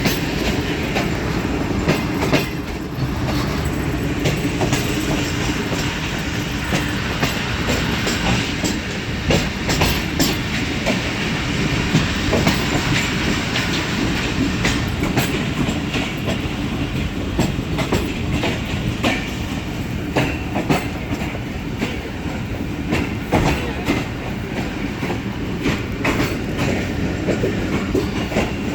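Sir Syed Express passenger train running at speed: a steady rumble of wheels on track with irregular sharp clicks from the wheels over rail joints.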